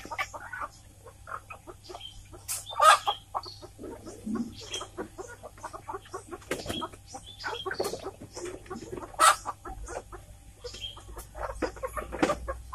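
Free-range village chickens (ayam kampung) clucking and giving short cries at irregular intervals, with scattered knocks and rustles.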